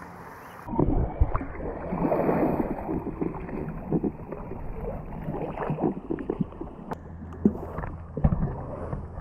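Pool water sloshing and splashing around Asian elephants, picked up by a camera sitting right at the waterline, so it sounds dull and muffled, with irregular bumps and knocks.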